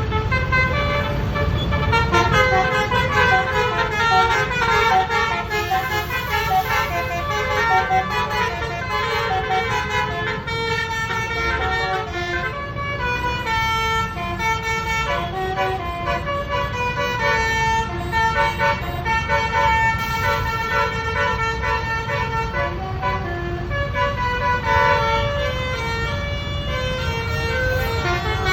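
A bus's multi-tone basuri (telolet) horn playing a tune as a run of held notes that step up and down without a break, over the low rumble of engines in slow traffic.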